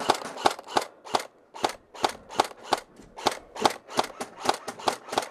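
Airsoft gun firing a steady string of rapid single shots, about three a second, each a sharp crack.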